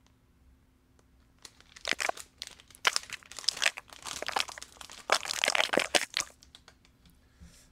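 Small clear plastic bag crinkling in irregular bursts as it is handled and opened, starting about a second and a half in and stopping about six seconds in.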